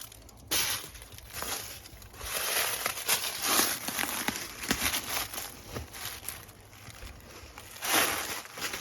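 Footsteps crunching and scuffing on a rocky trail, irregular steps on stones and grit.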